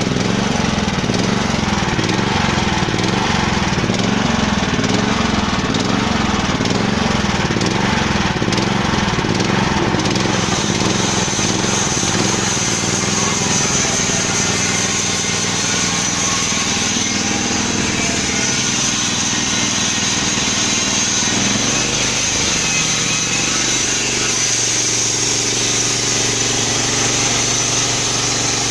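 Petrol engine of a homemade band sawmill running steadily, its sound changing about ten seconds in and again a little past twenty seconds.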